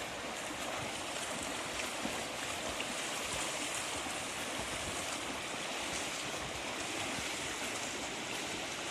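Steady splashing and churning of water from several backstroke swimmers' arm strokes and kicks in a pool.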